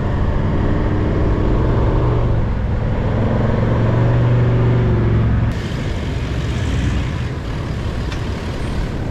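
Toyota Land Cruiser 78 Series Troop Carrier engine running as it drives along soft beach sand, its pitch rising and easing. About halfway through it cuts suddenly to quieter wind and surf noise.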